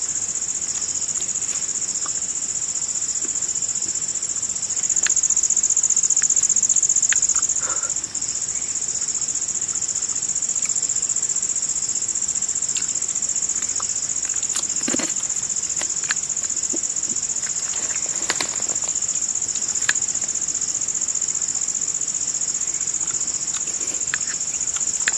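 Forest insect chorus: a steady, high-pitched trilling drone that swells louder for about two seconds around five seconds in. A few faint clicks and rustles sound over it.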